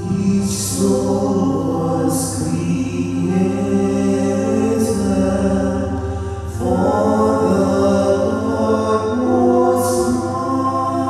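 Choir singing a hymn over sustained instrumental accompaniment. The voices come in as it begins, with a brief pause between phrases past the middle.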